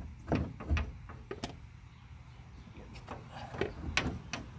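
A handful of short clicks and knocks as an Air Lift 1000HD air bag and its puck are pushed by hand up into a pickup's rear coil spring.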